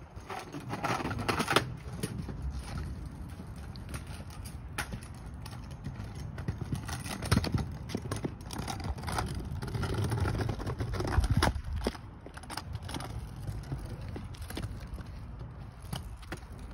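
Kick scooter rolling on pavement: a low rumble from its small wheels, broken by irregular clacks and knocks.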